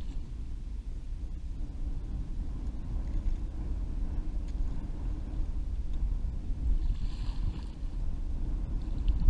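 Wind buffeting the microphone: a continuous, uneven low rumble.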